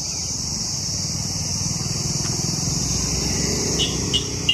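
Steady high-pitched insect drone from the roadside trees, with a motor vehicle rumbling past on the road, loudest in the second half. Three short chirps near the end.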